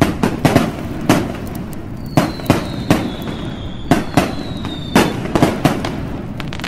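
Over a dozen sharp bangs and crackling pops at uneven intervals, with a thin high whistle sliding slowly down in pitch from about two seconds in to about five seconds in.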